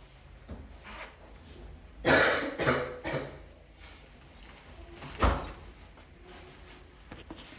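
A person's barking cough: a quick run of three or four harsh coughs about two seconds in, followed by a single sharp thump a few seconds later.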